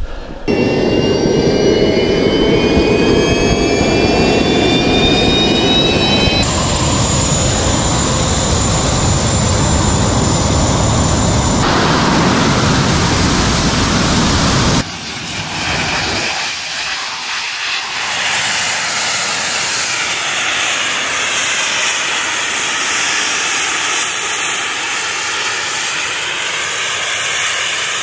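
Volonaut Airbike's jet engines running loudly, with a high whine rising in pitch over the first few seconds. The sound changes abruptly several times; after about fifteen seconds it is thinner and less loud, with the whine wavering up and down.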